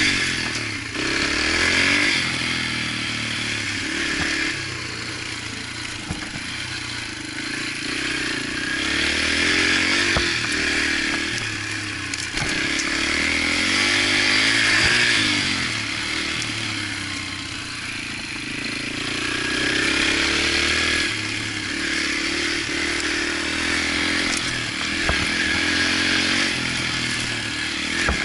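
Yamaha TTR125's single-cylinder four-stroke engine revving up and falling back as the dirt bike rides a trail, the throttle opening and closing every few seconds. A few sharp knocks come from the bike over bumps.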